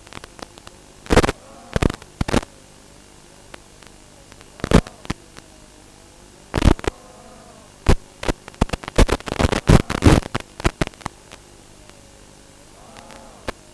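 FPV quadcopter's electric motors whining with a steady hum, their pitch rising and falling as the throttle changes, broken by sharp crackling bursts that crowd together for a few seconds past the middle.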